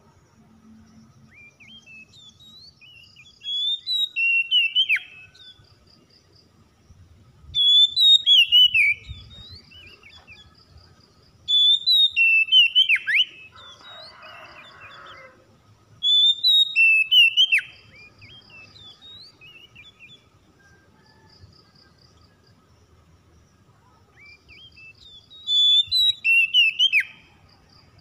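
Oriental magpie-robin singing: five short phrases of loud, clear whistles, each rising and falling and ending in a sharp downward slur, with a longer pause before the last phrase.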